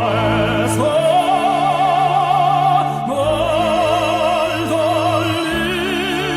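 Operatic singing with strong vibrato: long held notes over a sustained orchestral accompaniment.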